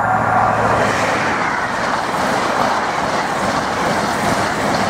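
LNER High Speed Train (Class 43 power cars hauling Mk3 coaches) passing close by at speed: a loud, steady rush of wheels on rail and air.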